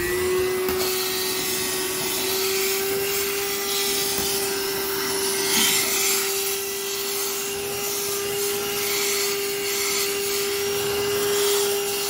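VacLife VL726 cordless handheld vacuum cleaner running steadily at full speed with an even whine, its nozzle working along the floor at the baseboard.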